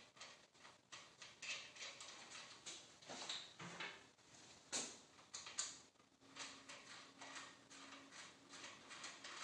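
Faint clicks, taps and light scraping of small metal parts being handled: a bicycle headset top cap and bolt being set on the stem and threaded in by hand.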